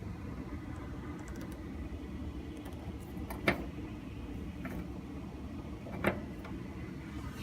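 Steady low rumble of a vehicle on the move, heard inside the cabin, with two sharp knocks or clicks about two and a half seconds apart, the first the loudest.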